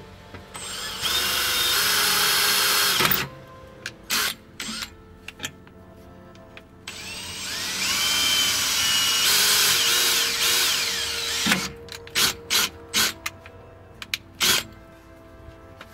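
Cordless drill drilling into the car's underbody: two long runs, the motor's pitch dipping and climbing as the bit bites, then a handful of short trigger bursts near the end.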